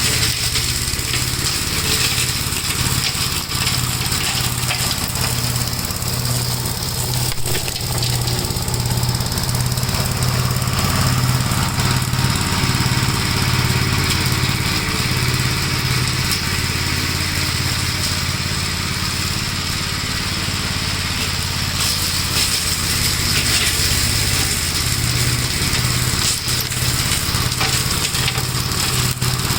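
1956 Gravely L walk-behind tractor's single-cylinder engine running steadily at an even speed, driving its brush-hog mower.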